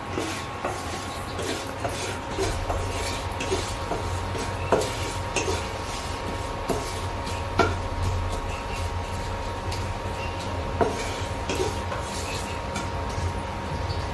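Nylon spatula stirring whole spices in oil in a non-stick kadai, scraping and tapping irregularly against the pan, with a few sharper knocks. A faint steady whine and hum from the induction cooktop runs underneath.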